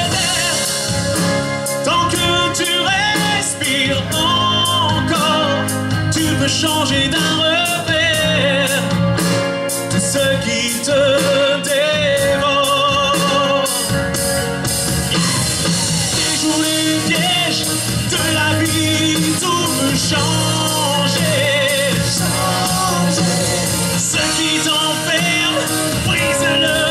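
Live pop-rock band playing: a man singing lead into a microphone over electric guitars and drums.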